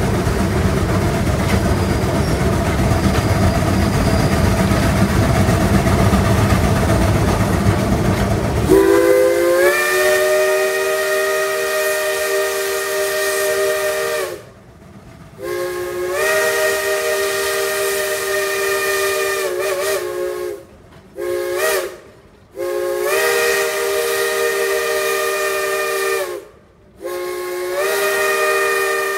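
Steam train running with a steady rumble. About nine seconds in, the Shay locomotive's chime steam whistle, several notes sounding together as a chord, starts blowing: two long blasts, a short toot, then another long blast, the long-long-short-long pattern of a grade-crossing signal. A further long blast begins near the end.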